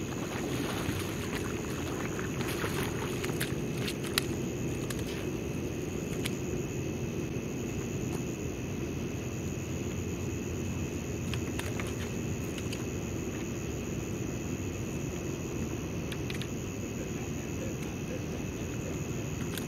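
Steady low outdoor rumble at an even level, with a thin steady high tone above it and a few faint scattered clicks.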